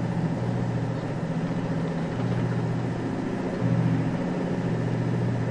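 Steady low engine hum, like idling diesel machinery, swelling slightly about two-thirds of the way through.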